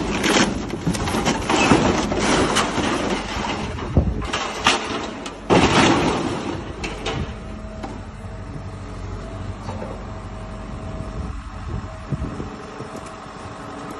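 An excavator's demolition grab tears into the body of a Volvo B7TL Plaxton President double-decker bus: irregular crashes and scraping of metal and glass, over the steady running of the excavator's diesel engine. The crashing dies away after about seven seconds, leaving the engine hum.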